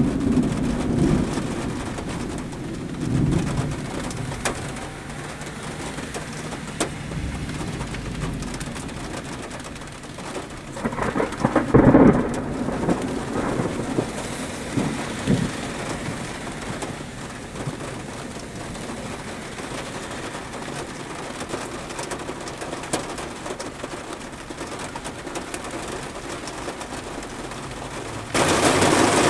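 Thunder rumbling over a steady patter of rain, heard from inside a car. The loudest peal comes near the middle, and the sound grows abruptly louder near the end.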